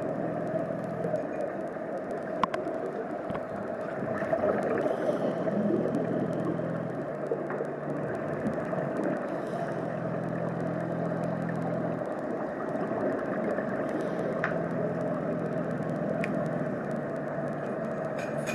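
Underwater ambience in a swimming pool: a steady wash of noise with a low machine hum that drops out and comes back several times, and a few faint clicks.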